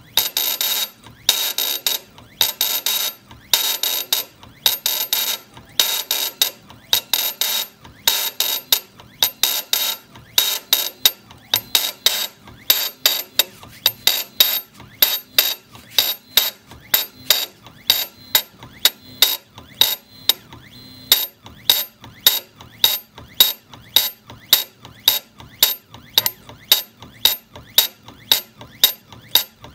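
CNC granite engraving machine working in short repeated bursts, longer and irregular at first, then short and regular at about two a second.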